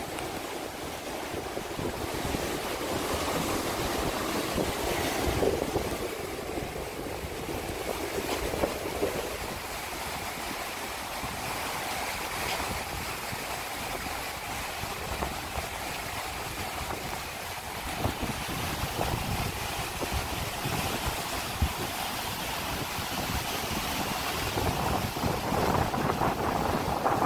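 Sea surf washing and breaking against rocks, a steady rushing noise, with gusts of wind noise on the microphone.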